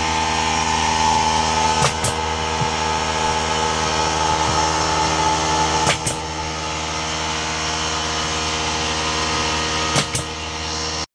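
Electric air compressor running steadily while a pneumatic finish nailer fires finishing nails into a tongue-and-groove Ponderosa pine board. There are a quick pair of shots about two seconds in, a single shot about six seconds in and another pair near the end.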